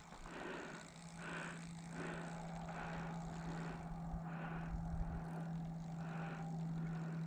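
Spinning reel being cranked to retrieve a topwater lure, a soft rhythmic whirr about one and a half turns a second, over a steady low engine-like hum.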